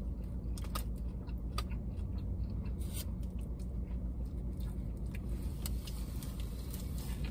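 Steady low hum inside a parked car, with scattered small clicks and rustles of someone eating a sandwich close to the microphone.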